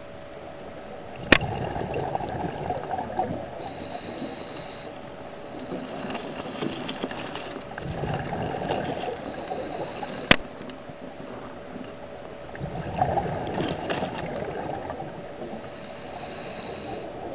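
Scuba diver breathing through a regulator underwater: exhaled air bubbles out in about four gurgling swells a few seconds apart, with a thin steady hiss between them. Two sharp clicks, about a second in and about ten seconds in.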